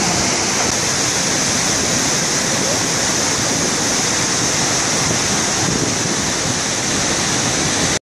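Iguazu Falls, a huge volume of river water plunging over the Devil's Throat: a loud, steady, unbroken roar.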